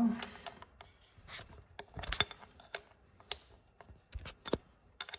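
Scattered metallic clicks and taps at irregular intervals: a hex intake-manifold wrench being fitted to and worked on a socket-head bolt at a motorcycle's intake manifold flange.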